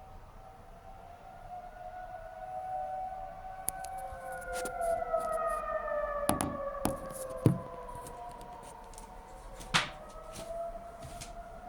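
Civil defence warning sirens sounding in a scheduled public test: several slow rising and falling wails overlapping at once, growing louder over the first few seconds. A few sharp knocks cut through midway, the loudest two about seven and a half and ten seconds in.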